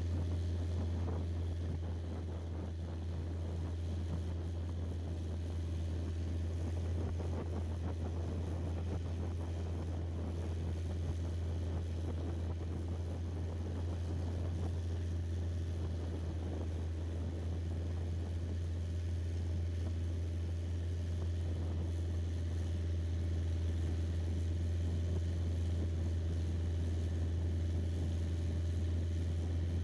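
Boat engine running steadily, heard on board as a constant low drone that holds the same pitch and level throughout.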